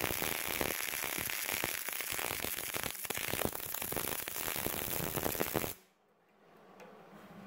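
Wire-feed welder's arc crackling steadily as steel brackets are welded onto a truck frame, with a brief pause about three seconds in. The crackle stops abruptly near the end, leaving only a faint low hum.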